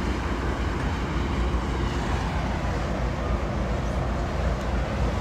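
Wind buffeting the microphone: a steady, gusting rumble with no distinct tones.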